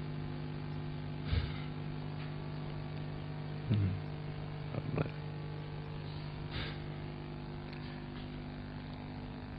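A steady low mechanical hum, like an engine running, with a few faint short sounds over it.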